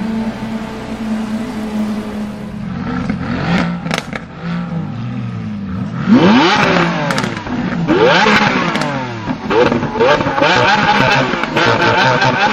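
Lamborghini Aventador V12 driving off and fading, then from about six seconds in a stationary Aventador SV's V12 revved hard in quick repeated throttle blips, about two a second.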